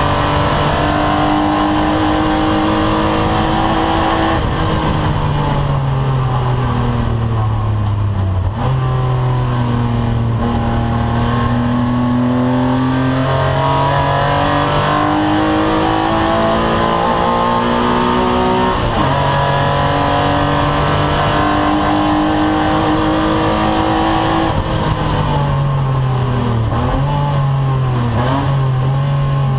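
BMW race car's engine heard from inside the stripped cockpit, running hard on track. Its pitch climbs in long pulls and drops suddenly at gear changes, three times in all, and falls away with a wavering run of downshifts near the end before climbing again.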